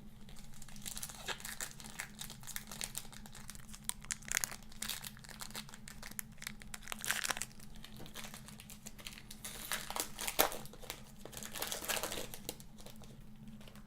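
Foil wrapper of a trading-card pack crinkling in the hands, with irregular crackles throughout.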